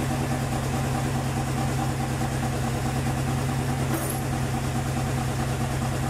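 Audi D2 S8's 4.2-litre V8 idling steadily through its freshly reinstalled exhaust, on its first run after a six-speed manual swap.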